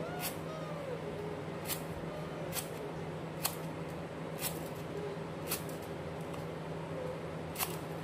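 Kitchen knife slicing lemongrass stalks on a wooden cutting board: sharp, separate chops at an uneven pace, roughly one a second.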